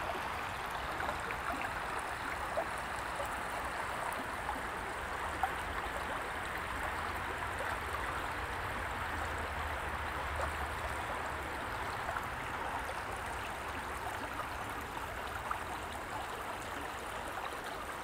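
Steady, even outdoor rushing noise with a low rumble underneath and a few faint clicks.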